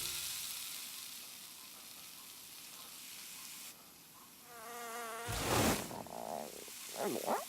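Animated-cartoon sound effects: music fading out, then a wavering insect-like buzz, a sudden loud rushing burst, and several quick whistling glides near the end.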